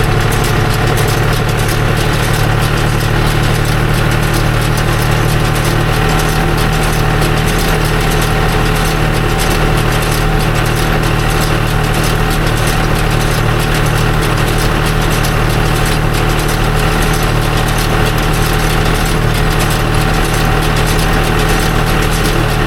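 Farm tractor engine running steadily at an even speed.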